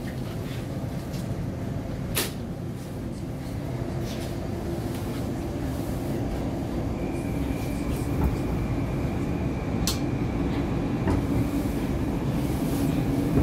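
81-775/776/777 "Moskva-2020" metro train running, heard from inside the carriage: a steady rumble and drive hum that slowly grows louder. A high steady whine joins about seven seconds in. Two sharp clicks come, one about two seconds in and one near ten seconds.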